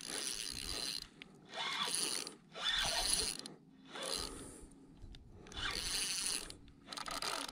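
Spinning fishing reel cranked by hand in about seven short spells with brief pauses between, its gears running as line is wound in.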